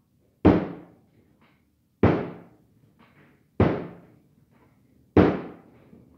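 Pandesal bread dough slammed down onto a floured tabletop during hand kneading, the dough still slightly wet: four heavy thuds, about one and a half seconds apart.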